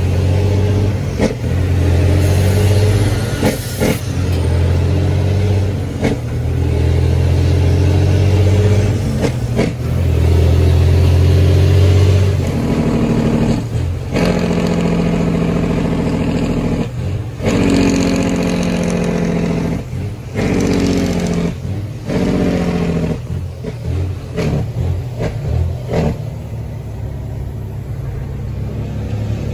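Semi-truck diesel engine heard from inside the cab, pulling in gear, its note breaking off and coming back again several times as the manual gearbox is shifted.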